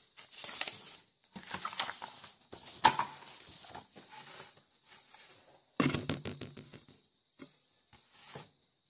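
A sheet of paper rustling and being handled in irregular bursts as the page is turned over to write on its back, with a sharper knock about three seconds in.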